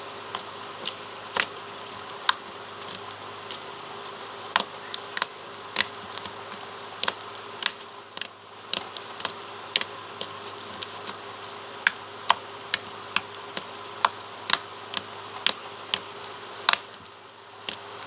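Cotton candy slime being squished and poked, making sharp irregular clicks and pops, roughly a couple a second, over a steady background hum.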